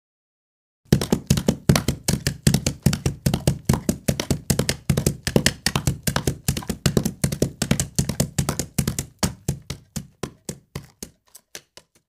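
Horses galloping: a fast, steady run of hoofbeats starting about a second in, which thins out and fades away over the last few seconds.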